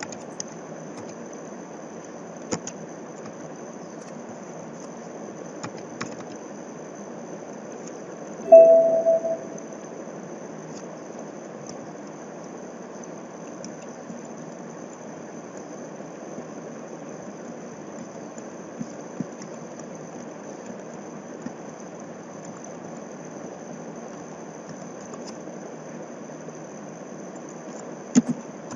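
Steady hiss and hum of a recording microphone in a quiet room, with a thin high whine throughout. A short, loud pitched beep comes about nine seconds in, and a few faint clicks are scattered through.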